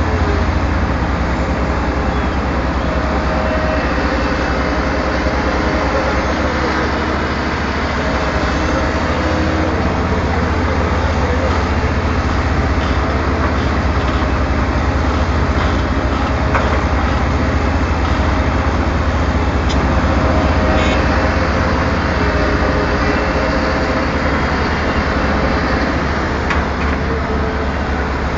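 Daewoo Solar 280 LC-III tracked excavator's diesel engine running steadily, a loud continuous low drone with faint steady whining tones above it.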